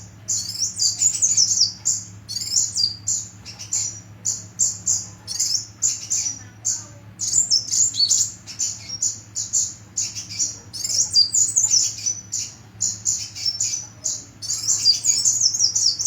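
A sunbird singing: a rapid, high-pitched twittering of short chirps and quick trills, almost without pause.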